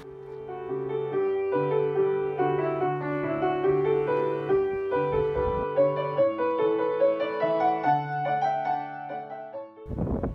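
Solo piano music with a steady bass line under a moving melody. About ten seconds in, the piano cuts off and a loud rushing noise takes over.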